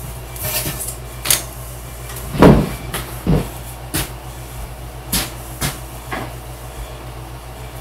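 A string of knocks and clatters as small objects are handled, set down and moved about on a worktable, the loudest a dull thump about two and a half seconds in, over a steady low hum.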